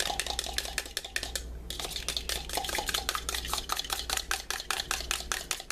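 A raw egg being whisked by hand, the utensil clicking quickly against the side of its container, about six strokes a second, with one short break about a second and a half in.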